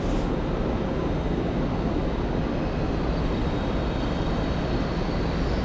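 Steady rumbling ambience of a large train station hall: the low din of trains and echoing background noise under the roof, with a faint high whine coming in about halfway through.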